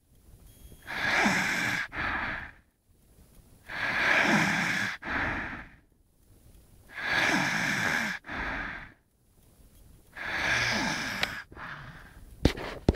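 Snoring: four slow breaths about three seconds apart, each a long loud snore followed after a brief pause by a shorter, softer one. A sharp click comes near the end.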